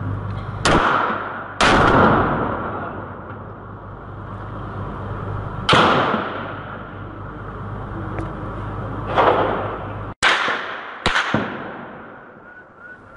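Gunshots in a built-up area: about six single reports, spaced irregularly and each followed by a long echo rolling off the buildings. The last two come close together near the end.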